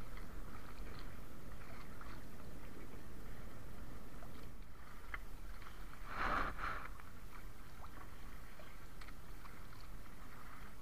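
Sea water lapping and sloshing against a small wooden outrigger canoe, over a steady low rumble of wind, with a few light knocks and clicks. There is a brief louder rush about six seconds in.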